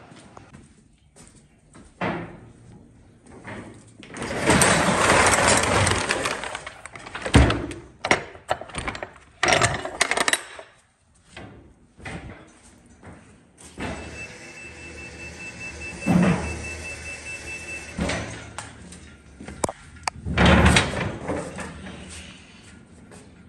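Rattling, rolling and knocking of a manual pallet jack and freight in a box truck's cargo area during unloading, with several sharp bangs. A fast, high beeping runs for about four seconds in the middle.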